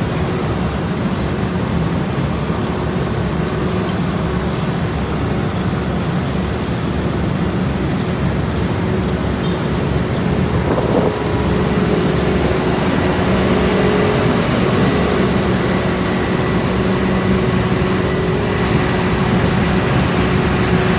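Heavy diesel asphalt-paving machinery running steadily: a constant engine drone with a faint steady whine over it, getting a little louder after about twelve seconds.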